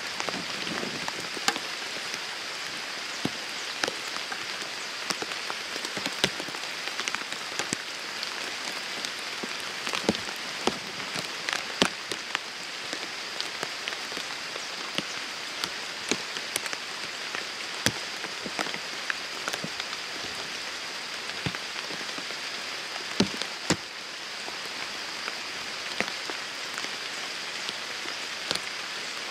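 Steady rain falling, an even hiss scattered with frequent sharp taps of drops landing close by.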